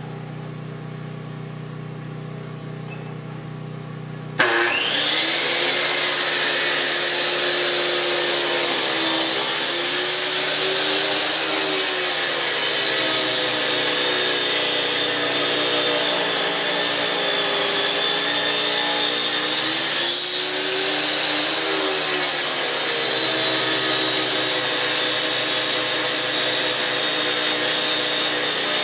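Electric power saw starting up about four seconds in and cutting a wooden rail piece, its motor pitch sagging and recovering a few times as the blade bites into the wood.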